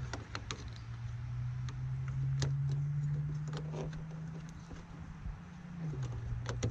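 Scattered light clicks and taps of a new RV door lock and handle assembly being fitted into the entry door, over a steady low hum that drops slightly in pitch near the end.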